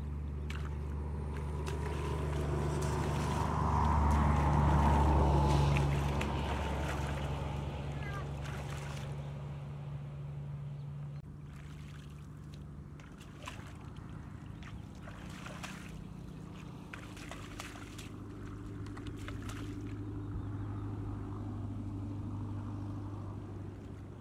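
A small engine running with a steady low drone, swelling louder a few seconds in and then easing off, with scattered small splashes and clicks of water as hands work in a shallow muddy channel.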